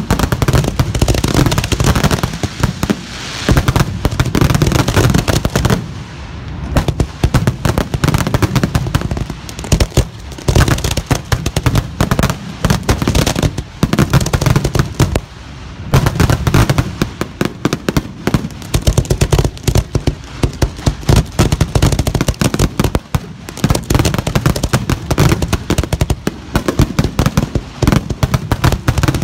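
Professional aerial fireworks display of 2.5- to 10-inch shells: a rapid, near-continuous barrage of mortar launches and shell bursts, with brief lulls about 6 and 15 seconds in.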